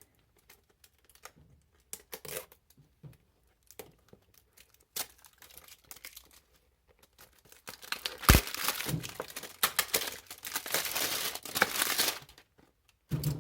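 Packaging of a new tool set being opened: scattered handling clicks at first, then about halfway through a sharp snap and some four seconds of loud tearing and crinkling before it stops.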